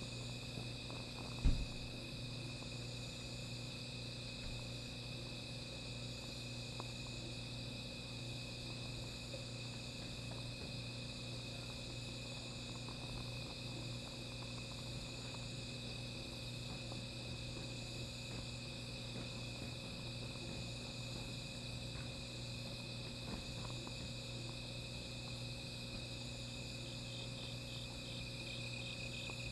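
Crickets and other insects trilling steadily in several overlapping high-pitched tones, with a faster pulsing chirp joining near the end. A single dull thump comes about a second and a half in, and a few faint crackles sound from the small fire.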